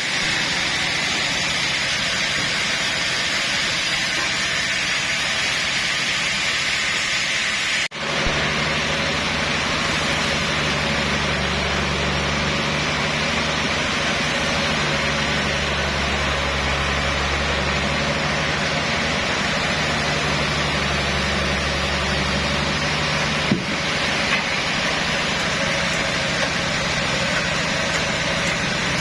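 Sawmill machinery running: a loud, steady mechanical noise. After a brief break about eight seconds in, a low engine hum runs under it.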